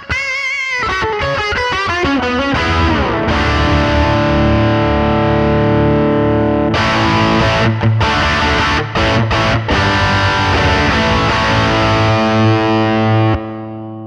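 Electric guitar through a DemonFX King of Drive two-channel overdrive pedal. It opens with a few wavering picked notes, then plays long, ringing distorted chords with a few brief stops. Near the end the level drops as the pedal is switched from one overdrive channel to the other.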